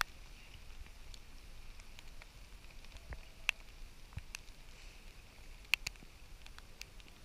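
Water drops landing close to the microphone: scattered, irregular sharp ticks, the loudest about three and a half and just under six seconds in, over a faint steady hiss of wet weather.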